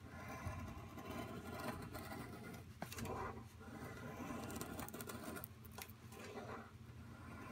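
A KA-BAR Becker BK2 knife blade shaving thin curls off a wooden stick to make a feather stick: a series of short scraping cuts, a second or two apart.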